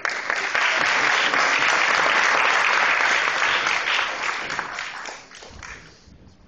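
Audience applauding, starting suddenly, holding strong for about four seconds and then dying away.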